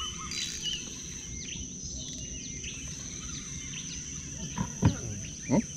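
Insects droning on one steady high note, with scattered short bird chirps over it. Two brief louder low sounds come near the end.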